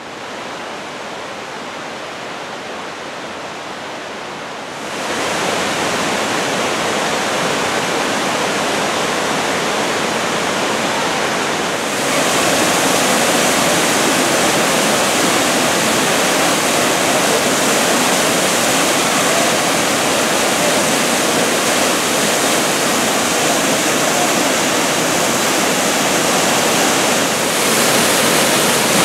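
Hedge Creek Falls pouring into its plunge pool, a steady rush of falling water running high with mountain snowmelt runoff. It gets louder about five seconds in and again about twelve seconds in.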